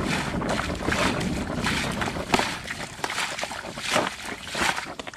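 Splashing and sloshing of a person wading in shallow muddy pond water, with a run of irregular sharp splashes as the water is kicked and scooped.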